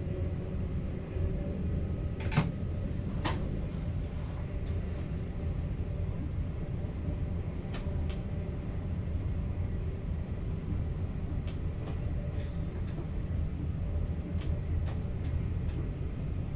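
VIRM double-deck electric train running along the track, heard from inside the driver's cab as a steady low rumble. Sharp clicks and ticks come at intervals: two louder ones about two and three seconds in, then short runs of them later.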